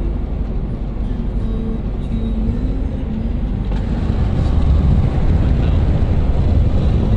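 A car on the road: steady engine and tyre rumble, louder from about four seconds in.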